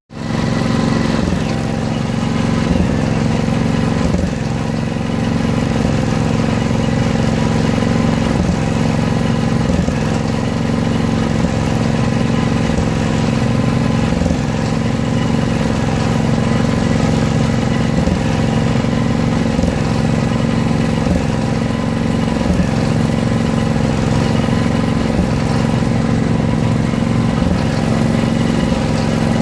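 A Terramite T-2 backhoe's engine running steadily.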